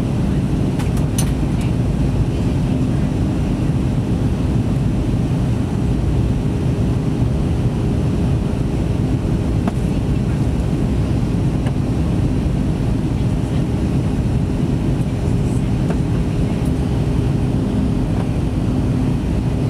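Cabin noise inside an Airbus A321neo in flight: a steady low rumble of airflow and its Pratt & Whitney PW1100G geared turbofan engines, with two steady hums running through it.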